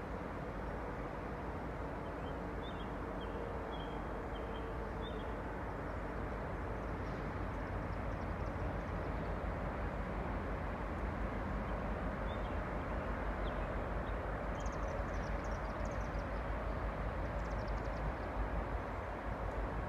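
EMD SD60E diesel locomotives at the head of a loaded coal train working under power as they approach, a steady rumble with a faint hum that slowly grows louder. Birds chirp briefly a few seconds in and again later.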